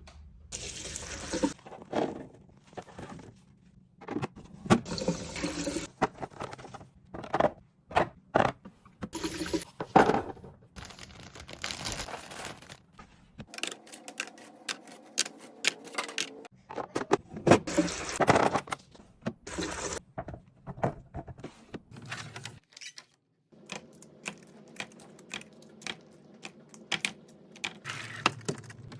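Kitchen items being handled: a quick series of clicks, knocks and clinks as containers are set down and opened, with short stretches of pouring or running liquid.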